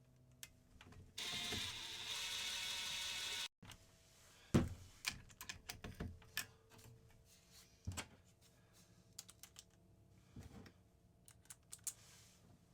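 Bosch cordless impact driver running for about two seconds, driving a clutch spring screw home, then cutting off suddenly. Scattered light clicks and knocks of tools and parts follow.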